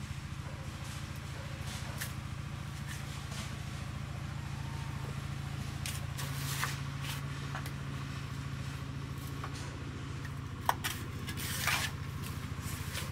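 Hand hoe scraping and chopping into soil and dry leaf litter: scattered short scrapes and light strikes, the sharpest a click followed by a brief scrape near the end. Under it runs a steady low engine drone.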